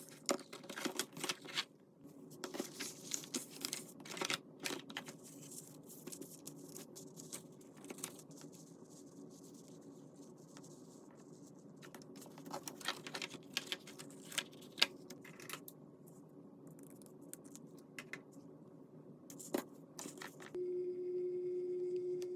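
Paper crafting by hand: sheets of paper rustling, tearing and crinkling, with many light taps and clicks. About 20 seconds in, a steady electric hum starts and keeps on.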